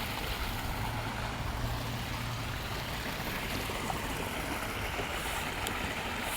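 Steady rushing of flowing water, with a faint low hum underneath for the first couple of seconds.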